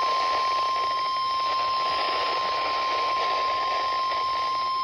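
NOAA Weather Radio 1050 Hz warning alarm tone: one steady high tone held without a break over radio static hiss. It signals that a warning message follows, here a severe thunderstorm warning.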